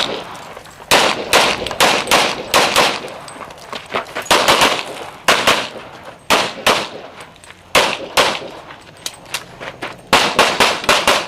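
Semi-automatic pistol firing fast strings of shots during a practical shooting stage, mostly pairs and triples split by short pauses, with a quicker run of about five shots near the end.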